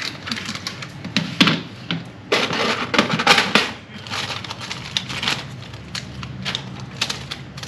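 Handling noise from plastic packaging and tackle boxes: irregular clicks and rustles, with a loud crinkle of plastic near the middle as a packet of circle hooks is handled.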